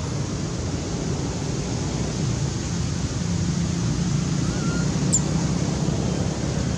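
Steady low rushing of wind on the microphone, with a brief high falling chirp about five seconds in.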